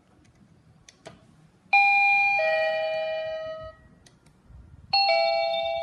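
Plug-in doorbell chime receiver, just plugged in and powered, playing a descending two-note ding-dong twice: once about two seconds in, and again near the end. Two faint clicks come just before the first chime.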